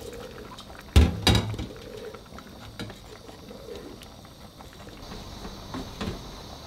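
Spoon stirring a pot of simmering stew, with two sharp knocks about a second in.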